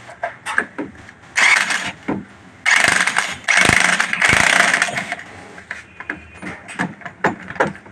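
Power wrench running nuts onto an engine's cylinder-head studs in bursts: one short burst, then three longer ones close together, with light metal clicks and knocks between them.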